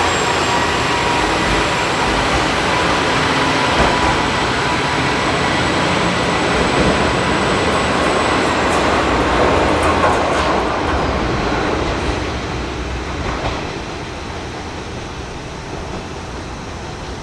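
Orange KiHa 40-series diesel railcars pulling away, with engine noise and wheels on the rails and a faint steady whine over the first half. The sound fades as the train draws off, dropping about thirteen seconds in.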